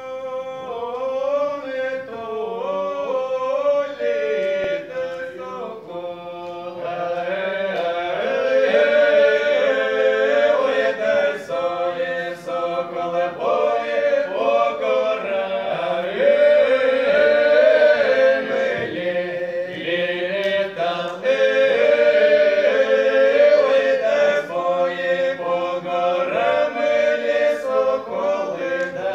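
Four male voices singing together unaccompanied, holding long notes in several parts, swelling louder about a quarter of the way through.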